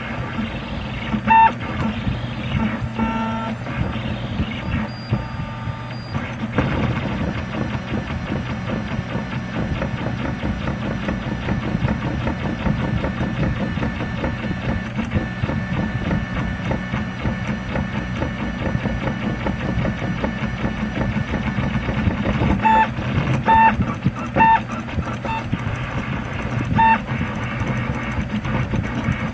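MendelMax 2 RepRap 3D printer's stepper motors buzzing and whining as the print head moves while printing, over a steady low hum. Short pitched beeping notes sound at moves near the start and again near the end, and from about 7 s to 22 s a dense, rapid chatter comes from quick back-and-forth filling moves.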